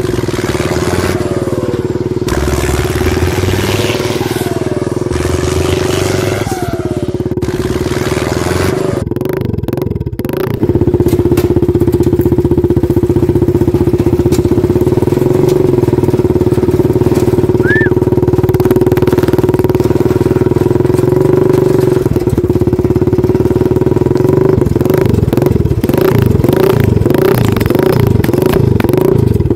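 Small engine of a handmade mini tractor running steadily as it pulls a loaded trailer along a dirt track. The engine note is steady and gets louder about a third of the way through.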